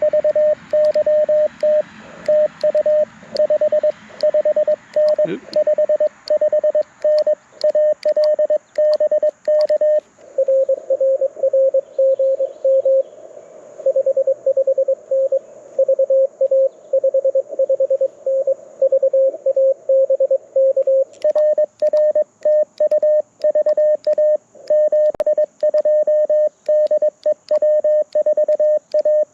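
Morse code (CW) from an LNR Precision Mountain Topper MTR4B V2 transceiver played through a JBL Go 2 speaker: a steady beep keyed in quick dots and dashes. From about 10 s to 21 s a slightly lower-pitched signal does the sending, then the higher tone returns, as two CW signals trade turns, with faint band hiss in the gaps.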